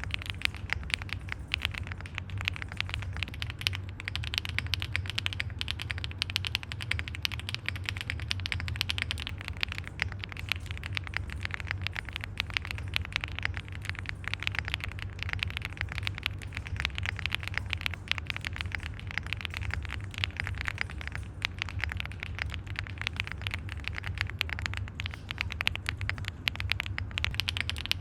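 Fast, continuous typing on an Owlab Link65 mechanical keyboard with HMX Poro switches in a POM plate, fully foamed, giving a dense run of keystroke clacks at a steady pace.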